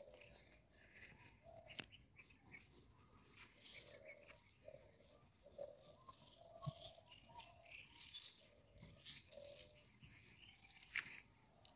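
Faint rustling and small clicks of a nylon cast net being gathered and arranged by hand, with faint short bird calls repeating in the background.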